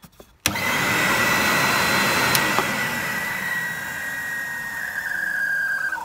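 Late-1980s Numatic Henry vacuum cleaner's 1000-watt motor switched on about half a second in, starting suddenly and running with a high whine that sinks slowly in pitch. The motor bearings are awful, by the owner's judgement.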